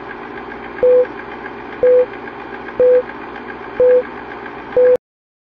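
Film-leader countdown sound effect: five short beeps about a second apart, one for each number, over a steady hiss with a faint fast flutter. It cuts off suddenly about five seconds in.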